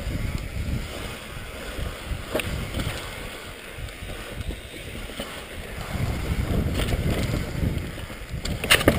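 Wind buffeting a helmet-mounted camera microphone as a mountain bike rolls fast down a dirt trail: a steady low rumble with tyre and frame rattle, and a few sharp clicks, one about two seconds in and several near the end.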